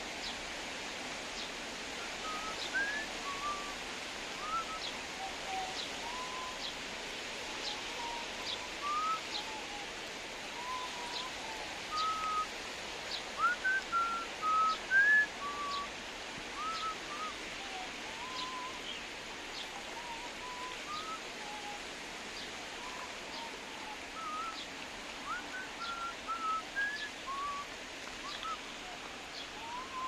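Steady hiss of rain falling on lake water, with a bird whistling short notes, some rising and some falling, loudest in a cluster about halfway. Faint high ticks come about once a second throughout.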